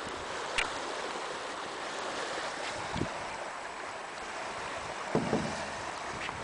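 Steady wind blowing across the microphone at the top of a lighthouse, with a few brief knocks and a rougher burst a little after five seconds.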